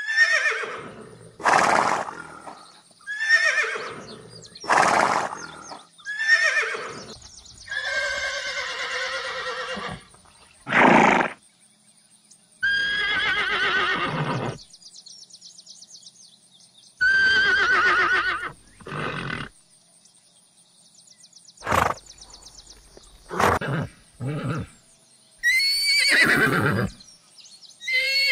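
A series of horse whinnies and neighs, about a dozen separate calls with short gaps between them; several are long quavering calls that fall in pitch, others are shorter and harsher.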